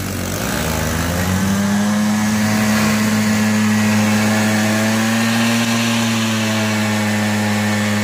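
Vespa-style scooter engine held at full throttle. It climbs in pitch over the first second or so and then runs high and steady while the rear wheel spins in the dirt under a heavy tochan pull.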